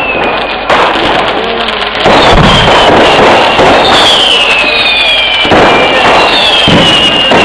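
Vedikkettu fireworks: a dense, continuous, loud barrage of bangs, with a heavier boom every few seconds and several whistles sliding down in pitch.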